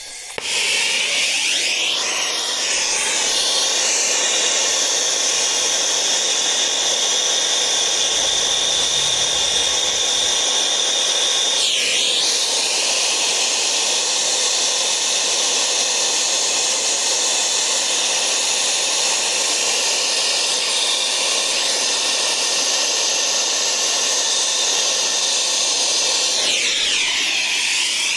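Air-acetylene turbo torch lit and burning for brazing, starting suddenly and then running as a loud, steady hiss. Its tone briefly wavers three times.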